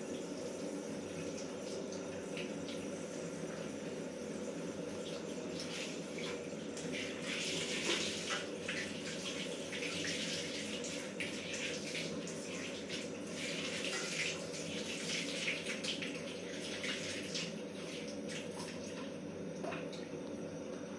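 Water running and splashing, over a steady low rush, with the splashing strongest in the middle stretch.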